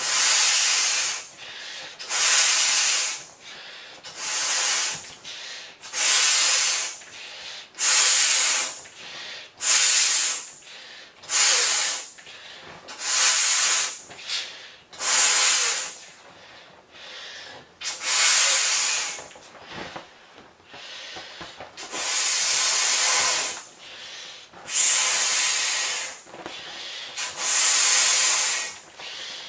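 A large vinyl beach ball being blown up by mouth: breath after breath of air hissing through the valve into the ball, each lasting about a second, about every one and a half to two seconds, with a longer pause in the middle.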